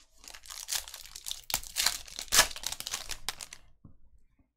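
Trading-card pack wrapper being torn open and crinkled by hand, with several sharp crackles; it stops about three and a half seconds in.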